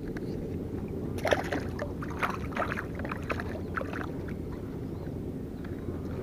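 Small milkfish splashing and flapping in shallow water at a muddy pond edge: a run of irregular splashes and slaps from about a second in until about four seconds, over a steady low rumble.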